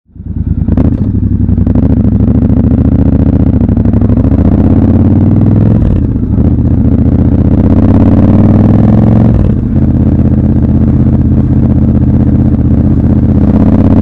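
Triumph Scrambler 1200 XC's 1200 cc parallel-twin engine running under way at city speed. Its note climbs gradually and dips briefly twice, about six and nine and a half seconds in, as gears are changed.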